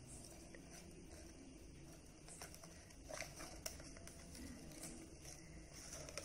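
Faint rustling and handling of construction paper as a fringed paper strip is wrapped around a paper cone, with a few light clicks and taps about three seconds in.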